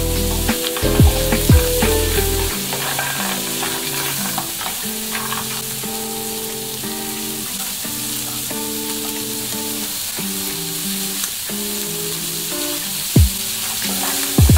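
Stir-fry of shrimp, cashews, celery and red pepper sizzling in a coated wok, with a steady frying hiss while a wooden spatula turns and scrapes it.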